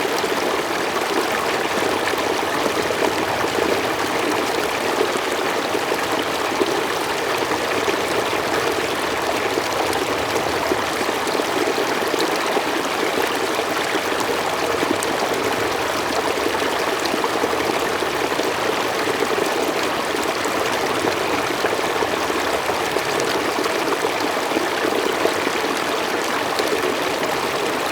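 Running water flowing steadily, an even rush that keeps up without pauses.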